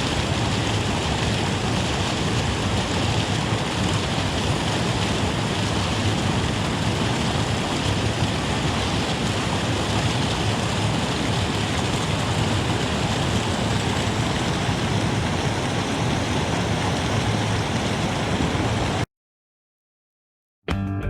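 Steady rushing of water over a small creek waterfall at a dam. It cuts off abruptly about 19 seconds in, and guitar music starts just before the end.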